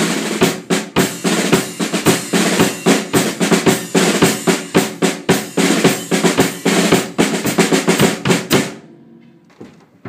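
A drum kit played fast and hard: a dense run of snare and drum strokes with cymbals, starting abruptly and stopping about nine seconds in.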